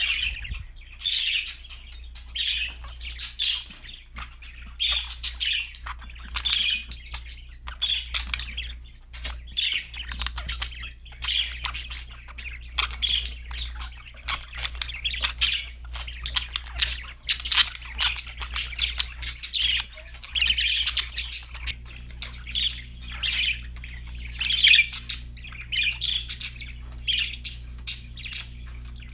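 Pet budgerigars chirping and chattering without a break, a stream of short, high chirps and clicks from several birds, over a steady low hum.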